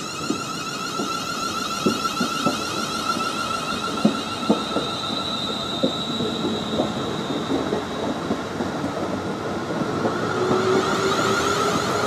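Greater Anglia electric multiple unit pulling out along the platform: its wheels knock irregularly over rail joints while a steady high whine runs underneath. From about nine seconds in, a motor whine rises in pitch and the sound grows louder as the train gathers speed.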